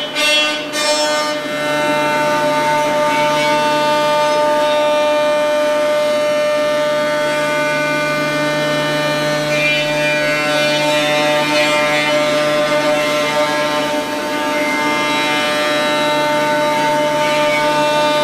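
C.R. Onsrud 148HD25 CNC machining center's spindle and end mill milling thick aluminum: a loud, steady high-pitched cutting whine with many overtones. A few short, harsher bursts come in the first second, and the tone dips briefly about 14 seconds in.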